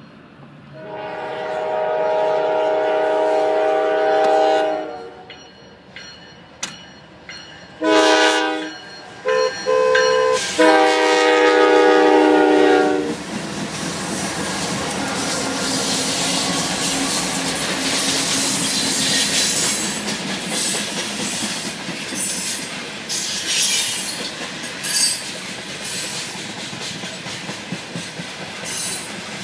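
A diesel locomotive's multi-chime air horn sounds a chord in a sequence of blasts: a long one, two short ones and a final long one. The coal train then rolls past close by with a steady rumble of wheels on rail, clicking over the rail joints and with brief high wheel squeals.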